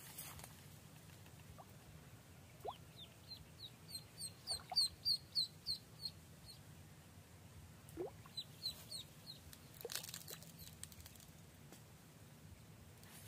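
Duckling peeping repeatedly in short, high calls: a quick run of about a dozen in the middle, then a few more later.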